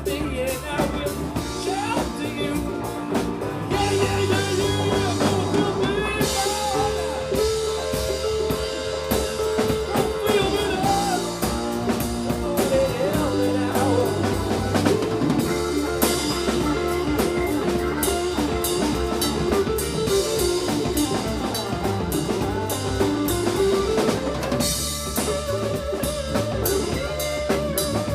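Live band playing an instrumental stretch of a funk song: drum kit keeping a steady groove under bass and melodic lead lines.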